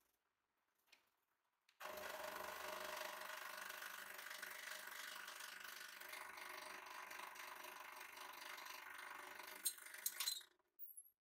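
Hydraulic press running steadily as the ram comes down on a metal pipe. A few sharp cracks near the end as the pipe gives way under the load, then the press stops.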